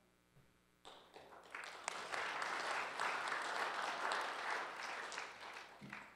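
Audience applauding: the clapping starts about a second in, fills out, and dies away near the end.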